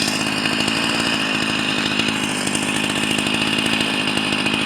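Husqvarna 44 two-stroke chainsaw running at a steady high speed through wood, cutting well.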